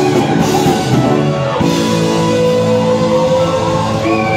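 Live rock band playing, with an electric guitar lead over drum kit, bass and keyboard; from about a second and a half in, long notes are held.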